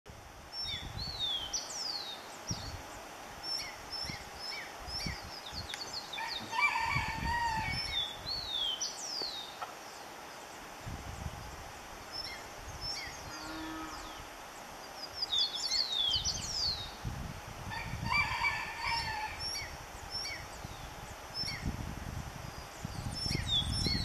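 Wild birds calling in the background: many short high chirps and quick falling whistles, with a longer, lower call about seven seconds in and again near eighteen seconds. Low rumbling bursts come and go underneath.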